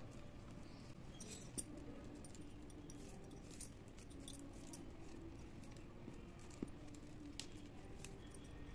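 Stiff plastic craft-wire strands being handled and pulled into box knots: faint rustling with scattered light clicks and ticks as the strands rub and knock together.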